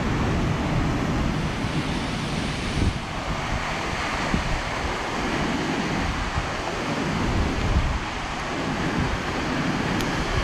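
Steady rushing noise of a large waterfall, with wind buffeting the microphone in low gusts; a single small click near the end.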